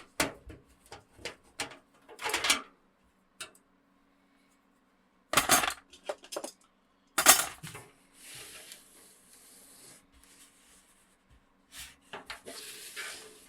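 Metal parts of a PC case and small screws clinking and clattering on a hard surface in a run of sharp knocks, the loudest about seven seconds in. Stretches of soft high hiss follow.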